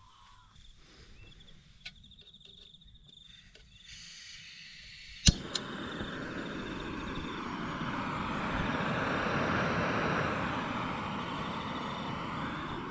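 Gas camp stove lit: a sharp click of the igniter about five seconds in, then the burner's steady hiss, which swells a little as it runs.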